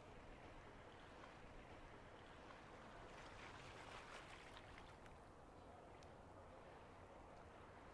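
Faint seaside ambience: a low, steady rumble with soft swells of water wash, rising briefly about halfway through.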